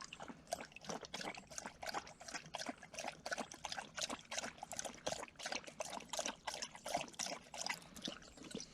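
A dog lapping water, a quick, steady run of wet laps several times a second.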